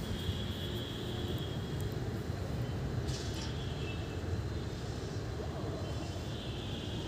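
Steady low rumbling background noise, with faint high thin tones near the start and again near the end.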